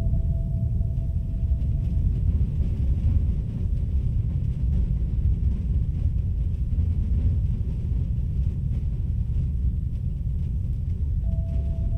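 Low, steady rumbling drone, with a single held tone over it that stops about two seconds in and comes back near the end.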